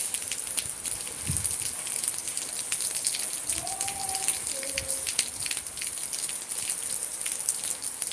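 Rain falling steadily, a dense patter of drops hitting the ground and buildings.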